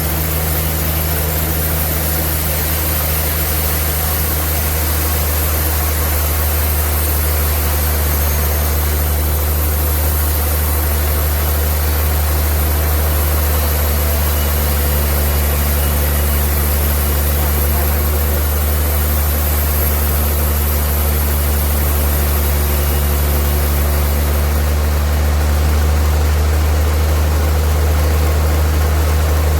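Sawmill machinery running steadily: a loud, constant, engine-like hum with no change in pitch.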